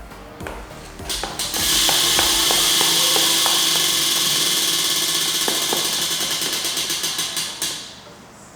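Aerosol hairspray can spraying in one long, loud, continuous hiss that starts about a second and a half in and cuts off about six seconds later.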